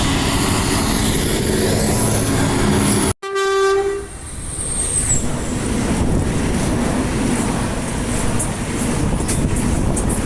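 Train horns over a running train. A steady horn note sounds over the train's rumble, the sound cuts off abruptly about three seconds in, and a short horn blast follows. After that comes the rumble of the train moving, with wheel clicks near the end.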